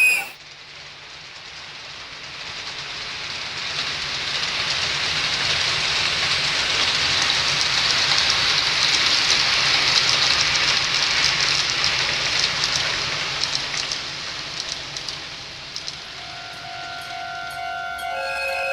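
A train running past, its rolling noise swelling to a peak about ten seconds in and then fading. Near the end a recording of a real train's horn begins to sound as a steady chord of several tones.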